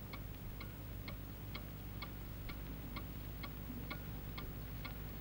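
Mantel clock ticking steadily, about two ticks a second, over a faint steady low hum.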